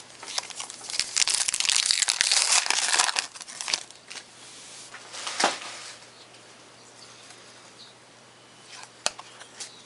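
Trading card pack wrapper torn open and crinkled for about three and a half seconds, then a single sharp rustle, with a few light clicks near the end as the cards are handled.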